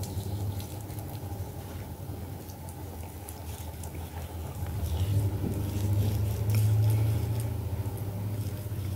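Fingers smoothing and patting wet turmeric paste over the face, with faint soft squelches and light clicks. Under it runs a steady low rumble that grows louder for a couple of seconds about two-thirds of the way through.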